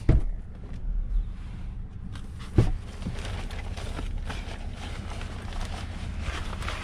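Steady low rumble of a vehicle idling, with a few sharp knocks, the loudest at the start and about two and a half seconds in, as the pickup's rear door is opened and things are handled in the back seat.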